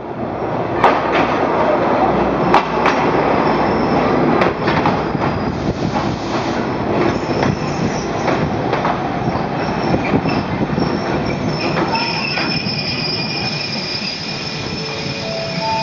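Passenger train rolling slowly past alongside the platform, with a few sharp clacks of wheels over rail joints in the first seconds. Near the end high, steady squeals set in as the train brakes to a stop.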